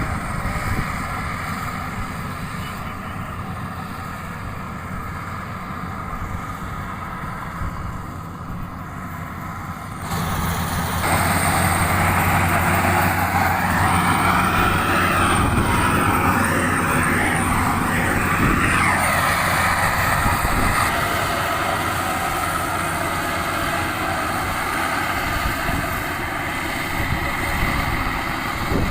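Rice combine harvester engine running steadily under load, with the machine's cutting and threshing noise. It gets abruptly louder about ten seconds in, with a harsher, noisier stretch for several seconds before settling back.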